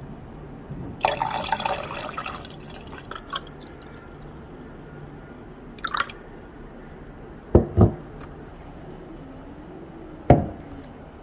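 Lemon water poured into a glass for a second or so about a second in. Then a brief clink and a few dull knocks as things are set down on a table.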